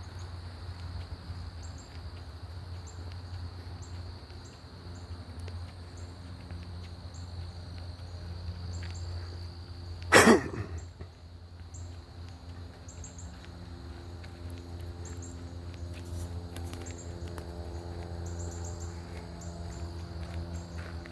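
Outdoor trail ambience: a steady high insect buzz and repeated short high chirps, over a low rumble. About halfway through, a single loud, brief swoosh falls sharply in pitch.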